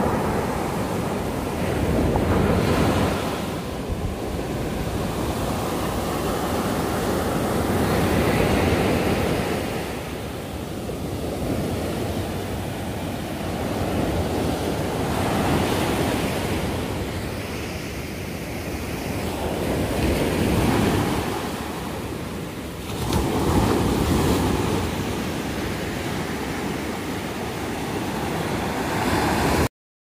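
Ocean surf breaking and washing up a sandy beach, a continuous rush that swells and eases with each wave every several seconds. It cuts off suddenly just before the end.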